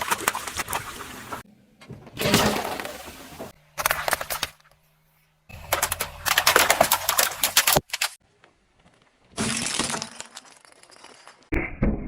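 Car tyres crushing brittle objects: crunching, cracking and breaking in about five separate bursts, each starting and stopping abruptly.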